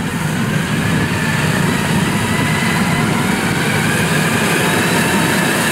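Engine of a small rice-sack transporter running steadily as it drives across a harvested paddy, with a faint whine that rises slowly in pitch.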